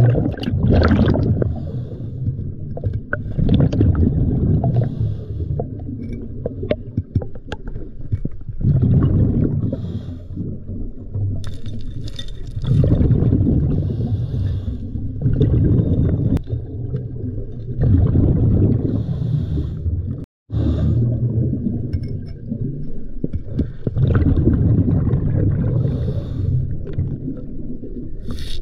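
Scuba diver breathing through a regulator, heard underwater: a low rush of exhaled bubbles every four seconds or so, with light clicks and scrapes between breaths.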